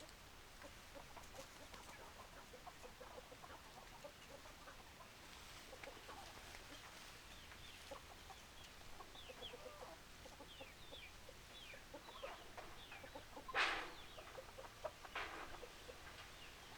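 Chickens: hens clucking softly while chicks peep in short, high, falling chirps, over faint small ticks. Two louder calls stand out about three-quarters of the way through.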